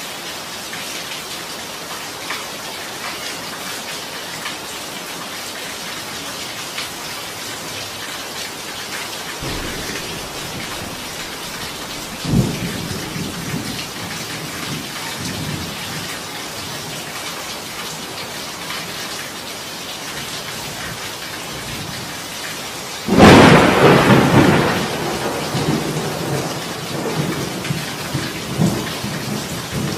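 Heavy rain falling steadily, with thunder. A sharp crack comes about twelve seconds in, and a loud thunderclap about two-thirds of the way through rumbles on for several seconds.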